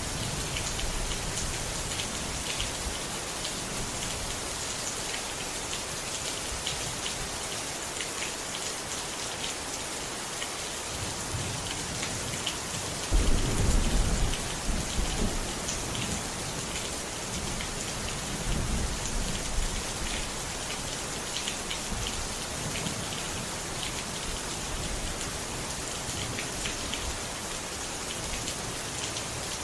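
Steady rain falling, with scattered drops tapping, and a low rumble of thunder a little before halfway that swells for two or three seconds and fades.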